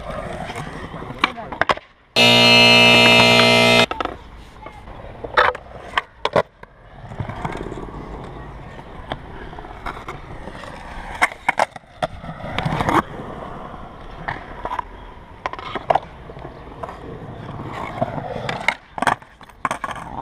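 Skateboard wheels rolling on concrete, with repeated sharp clacks of the board's tail popping and the board landing and slapping down. About two seconds in, a loud, steady buzzing tone lasts just under two seconds and drowns out everything else.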